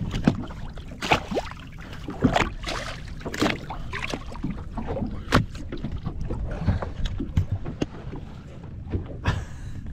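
Scattered knocks, clicks and rattles of handling aboard a bass boat, likely the landed smallmouth and gear being dealt with. They sound over a steady low rumble of wind and water.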